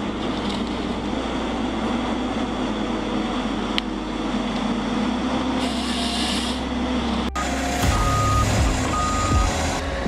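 Heavy machine's diesel engine running steadily with a brief hiss partway through. After an abrupt change, a reversing alarm beeps twice in long, even tones.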